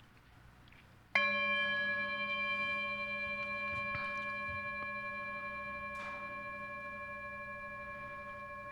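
A meditation bell is struck once about a second in and rings on, its clear tone slowly fading.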